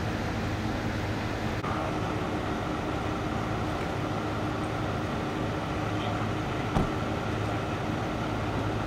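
Steady low hum of an idling fire engine, with one short knock about seven seconds in.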